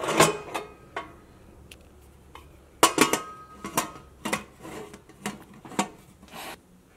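Stainless steel pressure cooker lid being fitted and closed onto the pot: a series of metal clinks and scrapes against the rim, loudest near the start and about three seconds in.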